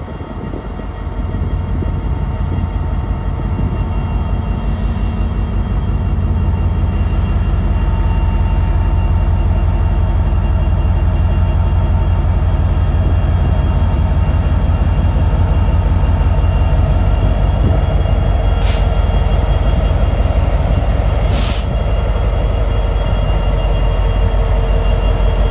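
Train rolling by close at hand: a steady, heavy rumble of wheels on rail, with a few brief high-pitched bursts.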